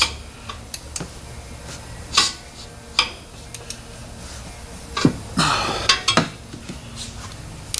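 Scattered metallic clinks and knocks of hand tools and metal parts being handled and set down, at an irregular pace, with a short cluster of clinks about five seconds in.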